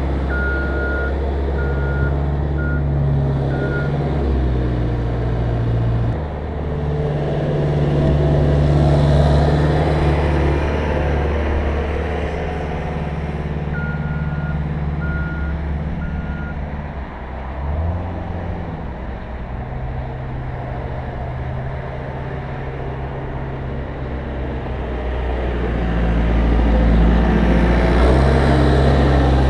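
CAT 242B3 skid steer's diesel engine running under load, its speed rising and falling as the machine works, with the backup alarm beeping in two short runs of beeps as it reverses.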